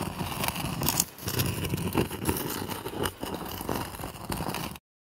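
A small rock scraping and dragging across stone in a run of rough, gritty strokes, with brief pauses about a second in and about three seconds in, stopping suddenly near the end.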